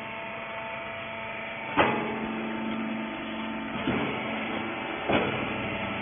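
Wiper rag baler running with a steady motor hum, broken by three sharp clunks: one just under two seconds in, one near four seconds and one just after five seconds.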